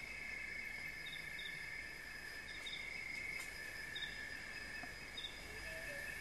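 Nature ambience of a steady high insect chorus, with short high chirps repeating about once a second. A few low whistled notes begin near the end.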